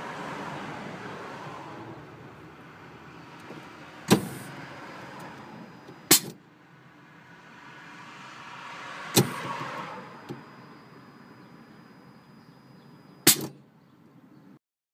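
Roadmaster Even Brake 9400 portable supplemental brake unit running a test cycle: a whirring motor sound that swells and fades twice, broken by four sharp clacks a few seconds apart as the unit works the brake pedal.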